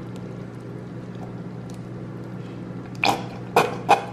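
Cooking cream pouring from a carton into a saucepan of thick white sauce, over a steady low hum. About three seconds in come several sharp knocks and clatters.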